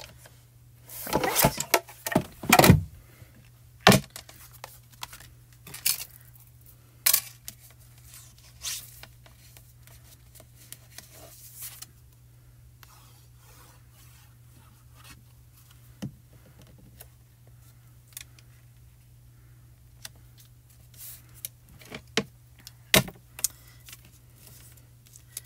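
Paper and cardstock being handled on a craft desk: sliding, scraping and rustling, loudest two to three seconds in, with scattered light taps, over a steady low hum.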